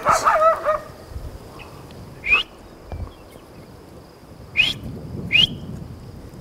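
Three short, sharp rising whistles, a couple of seconds apart, after the falling tail of a wavering call at the very start.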